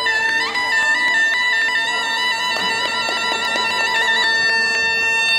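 Suona, the Chinese double-reed shawm, playing a bright, reedy melody: a quick upward slide into a long held high note, with a brief ornament near the end.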